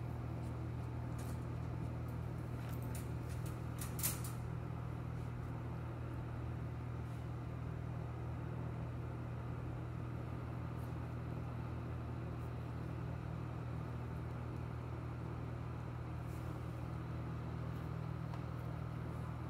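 A steady low mechanical hum, like a fan or appliance running, with a few faint clicks and one sharper click about four seconds in.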